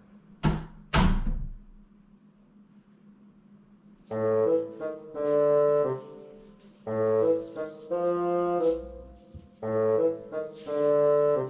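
Background music: a jaunty tune in short phrases of held notes that starts about four seconds in, after two short sharp sounds near the start and a quiet gap.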